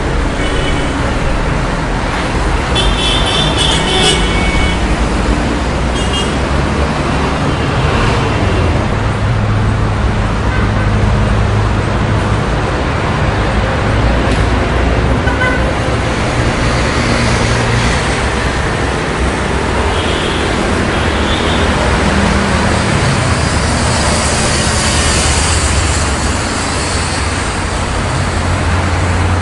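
City street traffic: a steady wash of cars and buses passing with low engine hum that swells and fades. A brief high-pitched tone sounds about three seconds in.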